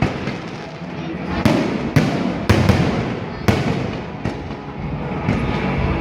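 Aerial fireworks bursting in a run of sharp, echoing bangs, several about half a second apart, the biggest in the first half.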